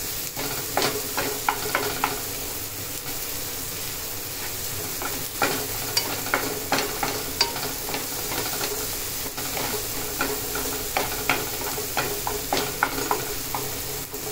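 Chopped onion and tomato sizzling steadily as they fry in a non-stick pan, while a spatula stirs them and knocks against the pan in frequent sharp clicks. The stirring eases off for a few seconds about two seconds in, then picks up again.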